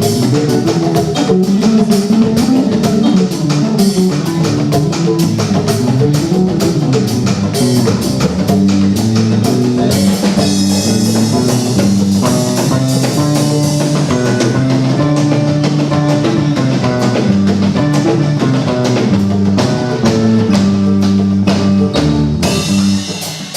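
Music: a band with guitar and drum kit playing a steady, driving beat.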